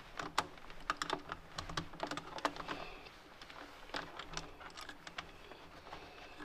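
Hand ratchet clicking in short, irregular runs as bolts on a car's air-intake adapter are tightened.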